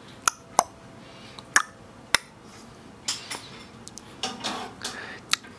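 About five sharp, separate clinks and taps of small hard objects knocked together, spread across a few seconds, with softer rustling and knocking in between.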